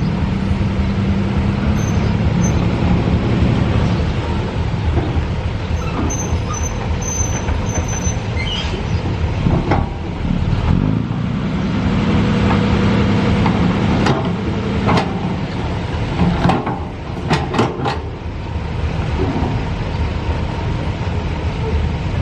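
Heavy construction machine's diesel engine running under varying load, swelling and easing off, with several sharp knocks partway through.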